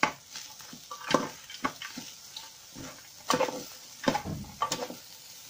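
A utensil scraping and knocking against a pan in irregular strokes as fried rice with vegetables is stirred, over a faint sizzle of frying.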